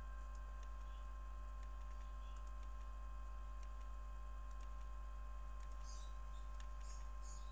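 Faint, scattered computer mouse clicks over a steady low electrical hum and a thin constant tone.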